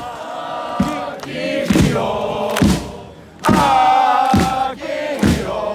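A crowd of football supporters singing a chant for a player in unison, clapping along about once a second.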